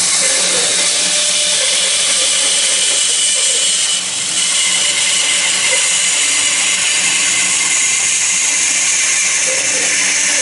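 18-inch Jet bandsaw running, its blade cutting slowly across the grain through a tall stack-laminated wood block: a loud, steady hiss with a brief dip about four seconds in.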